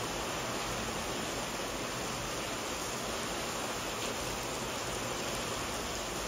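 Steady rain falling, an even hiss with no thunder or other sudden sounds.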